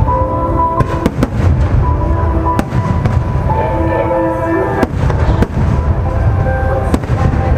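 Fireworks display going off: repeated sharp cracks and bangs over a continuous low rumble of booms, with loud music playing along with the show.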